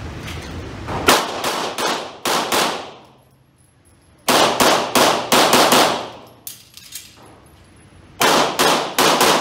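Handgun shots fired in rapid strings, echoing off the walls of an indoor range. There are four bursts of quick shots, starting about a second in, at about four seconds, at six and a half seconds and at eight seconds, with short pauses between them as the shooter moves between positions.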